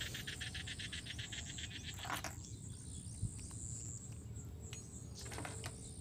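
Faint, rapid chirping of insects in the background, about ten chirps a second at first. About two seconds in there is a short rattle, with a few light clicks later, as small metal parts are handled inside a steel mixer jar.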